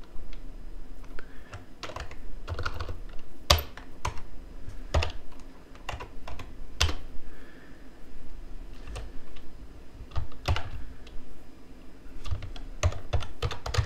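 Typing on a computer keyboard: irregular keystrokes with short pauses between them.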